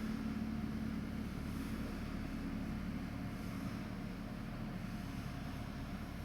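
Vacuum street-sweeper truck running: a steady engine and fan drone with a low hum, slowly getting quieter.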